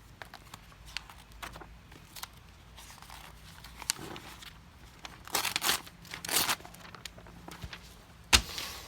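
Freshly sharpened Victorinox Swiss Army knife blade being tried out on a crinkly material: small scattered crinkles and clicks, then two longer slicing strokes about five and six seconds in, and a sharp snap near the end.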